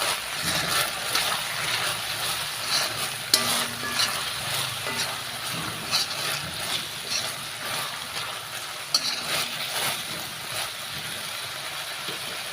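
Sliced beef frying in a pan with Korean chili sauce, sizzling steadily while it is stirred, with a few sharp knocks of the utensil against the pan.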